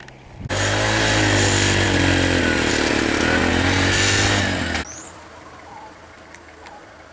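Motorcycle engine running close by, its pitch dipping and then rising again. It starts suddenly and cuts off after about four seconds.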